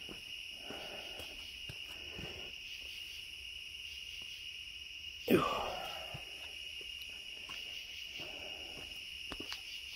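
Crickets chirring in a steady, unbroken high trill. A single short, louder knock comes about five seconds in.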